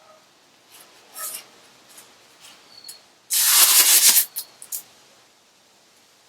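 Compressed air from an air blow gun blowing sawdust off sanded logs: one loud hiss lasting about a second, midway through, then two brief puffs.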